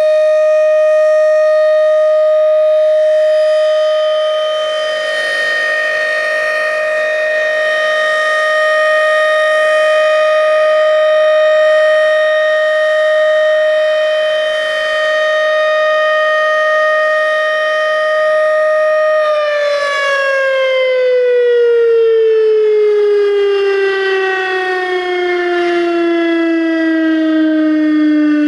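Federal Signal Thunderbeam RSH-10 outdoor warning siren sounding a steady full-alert tone, loud and held at one pitch with a slow swell and fade in level. About two-thirds of the way through the pitch begins to fall smoothly as the siren winds down.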